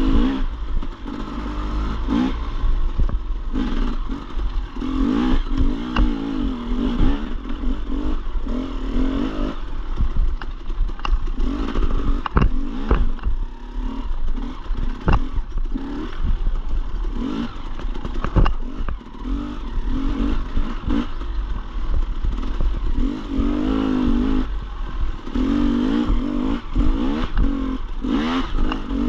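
Dirt bike engine revving up and down through the gears while riding trail, with frequent clatters and sharp knocks from the bike over rough ground.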